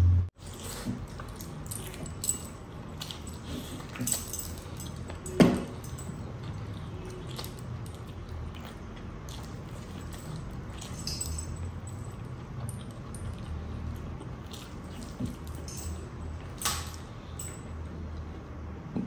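Close-up eating sounds: chicken drumstick meat being bitten off the bone and chewed, wet mouth noises with scattered sharp clicks and smacks, one louder about five seconds in, over a low steady hum.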